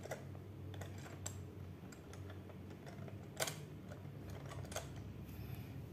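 Faint plastic clicks and taps of a toy train's locomotive and tender being fitted onto plastic track, a few scattered clicks with one sharper click about three and a half seconds in.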